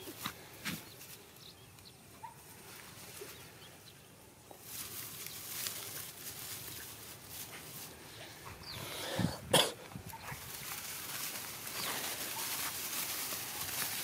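Dogs moving through dry rice stubble, the straw rustling, with one short loud sound about nine and a half seconds in.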